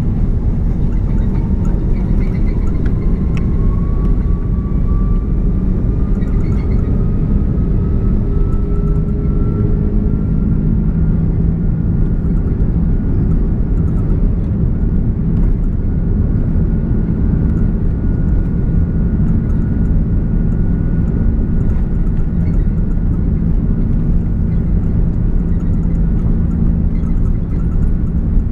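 Airbus A330 jet engines heard from inside the cabin: a loud steady rumble with an engine whine that rises in pitch over the first dozen seconds and then holds steady, as the engines spool up for the takeoff roll.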